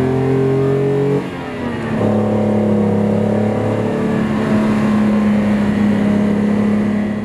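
1956 Mercedes-Benz 300 SL Gullwing's fuel-injected three-litre straight-six pulling under acceleration, rising in pitch. About a second in, the note breaks for a moment and comes back lower for a gear change, then pulls on steadily.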